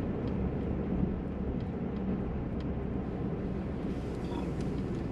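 Steady road and engine noise inside a moving car's cabin.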